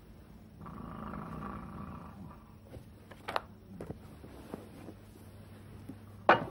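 A growl-like rumble lasting about a second and a half, then the rustle of a quilt being thrown back as someone gets out of bed, with a few soft knocks and one sharp, loud knock near the end.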